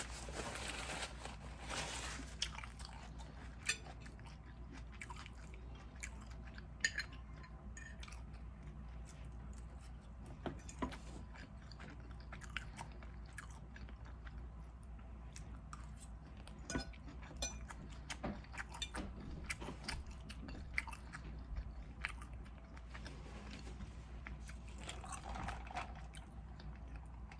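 A person chewing food close to the microphone, with scattered sharp mouth clicks and smacks.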